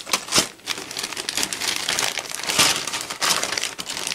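Clear plastic bags around plastic model-kit parts sprues crinkling and crackling as they are handled, a continuous run of crackles.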